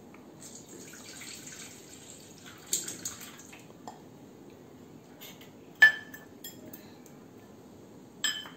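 Rinse water trickling and dripping as it is drained off chana dal from a glass bowl into a steel bowl, with sharp clinks of the glass bowl against steel and the counter: one a few seconds in, the loudest about six seconds in, and another near the end.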